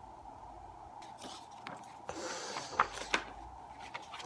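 Hardcover book being handled and opened: a short rustle of the cover and pages a little past two seconds in, then two light taps close together, over a faint steady hum.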